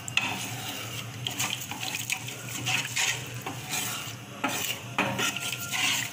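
A ladle stirring a thin, freshly watered-down garlic gravy in a metal kadai, scraping and knocking against the pan about once a second while the liquid sloshes.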